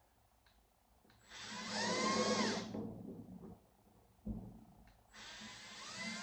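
Power drill running in two bursts, drilling into the school bus's thin sheet-steel roof, its motor whine rising and falling in pitch within each burst.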